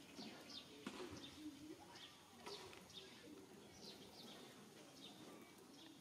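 Faint bird chirps: short, high, falling notes repeating about twice a second over quiet outdoor ambience.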